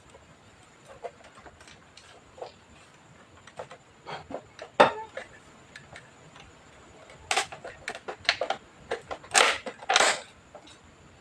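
Irregular clicks, taps and short scraping noises of hard objects being handled, loudest about five seconds in and bunched in a cluster over the last few seconds.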